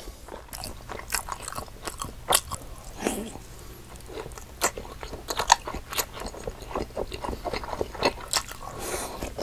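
Close-miked eating of Korean fried snack food: crisp bites and chewing, with irregular crunches and mouth clicks. The sharpest crunches come about two seconds and five and a half seconds in.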